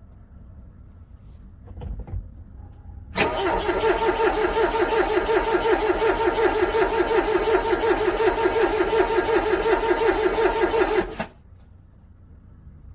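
Car engine cranked on the starter in freezing cold, turning over with an even, rapid chugging for about eight seconds without catching, then cut off abruptly. It is a cold start that fails to fire.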